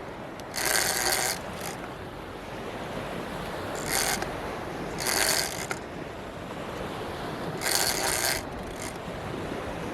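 Shark-fishing reel's drag buzzing in several short bursts as a hooked shark pulls line off the reel, over steady surf.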